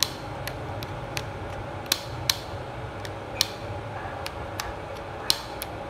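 Buttons on a TV remote control clicking as they are pressed, about ten sharp, irregularly spaced clicks over a low steady hum.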